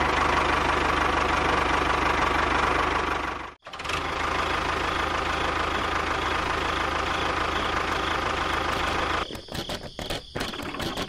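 A small motor running steadily, with a brief drop-out about three and a half seconds in; near the end the sound turns uneven and choppy.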